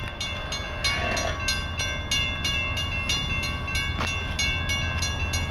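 Railroad crossing warning bell ringing in rapid, even strikes while the crossing gates are down, signalling an approaching train. A low, steady rumble runs underneath, with a single sharp click about four seconds in.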